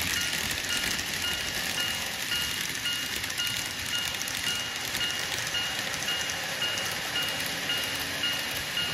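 Model electric train running along the layout track: a steady fine clicking and rattling of wheels on rail and the running gear. A faint high beep pulses about three times a second throughout.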